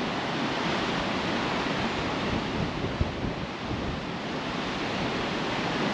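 Sea surf washing on a shingle-and-sand beach, a steady rushing noise, with wind buffeting the microphone.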